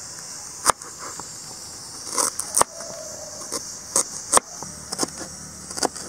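Large kitchen knife chopping fresh ginger on a wooden cutting board: about ten sharp, irregularly spaced knocks of the blade striking the board.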